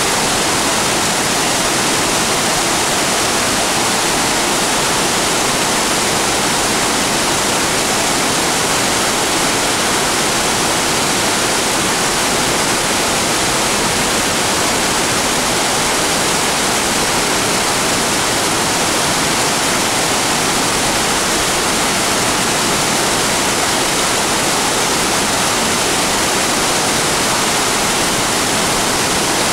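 Waterfall in heavy flow, a steady loud rushing roar of falling water heard from close by.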